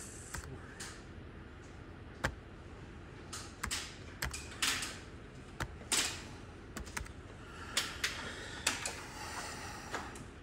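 Keys tapped on a computer keyboard: irregular keystrokes and clicks, some in quick runs, with short pauses between.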